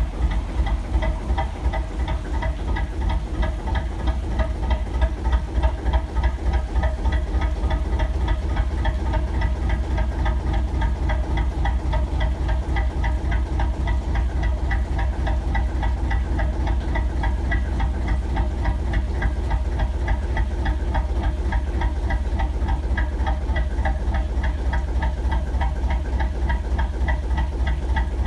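Lister JP2 two-cylinder diesel engine of a narrowboat running steadily at a slow tickover, its firing beats evenly spaced.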